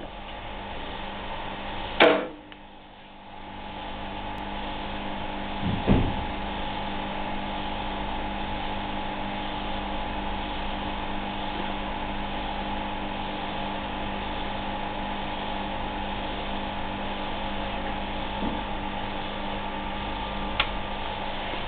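Steady hum and fan-like whir of running lab bench equipment. A sharp click comes about two seconds in and a dull knock about six seconds in, with a couple of faint clicks near the end.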